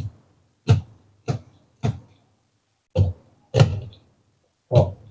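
Knife blade knocking on a plastic cutting board as it scores slits into a whole tilapia: seven short, sharp knocks with uneven gaps.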